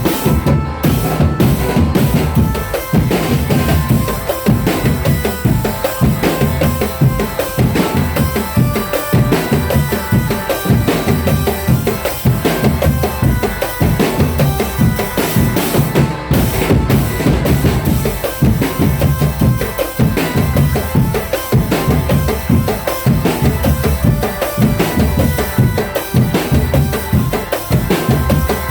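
Drum band playing a steady, driving beat on bass drums and snare drums, with a sustained melodic line over the rhythm.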